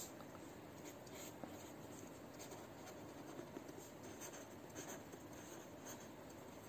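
Faint scratching of a pen writing a word on paper, in an irregular run of short strokes.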